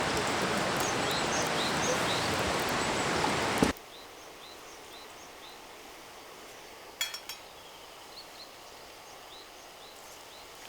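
Small birds chirping repeatedly outdoors. For the first few seconds a loud, steady rushing noise covers everything and then cuts off abruptly, leaving the chirps over a faint hiss. A short cluster of clicks comes about seven seconds in.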